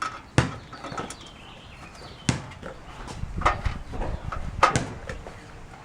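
About half a dozen sharp knocks and thuds at irregular spacing, the loudest about half a second, two and a half, and nearly five seconds in.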